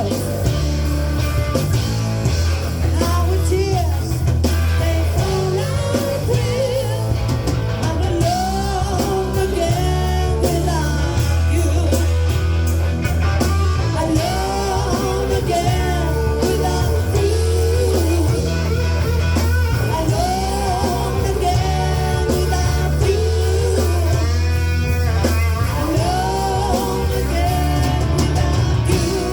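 Live rock band playing, with a singer carrying the melody over a steady, loud band accompaniment and a strong bass line.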